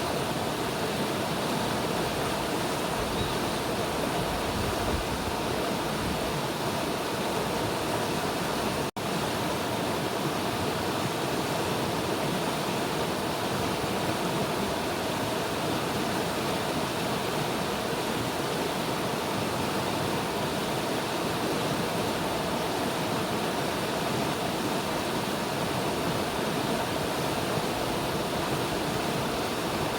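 River water flowing steadily, an even rushing noise without pauses, broken once by a split-second dropout about nine seconds in.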